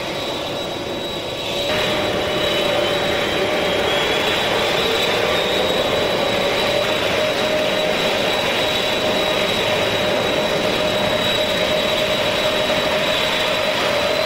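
The General Electric TF39 turbofan engines of a C-5A Galaxy running on the ground: a steady jet roar with a high whine over it. About two seconds in it gets louder, and a whine rises slowly in pitch as an engine's power comes up.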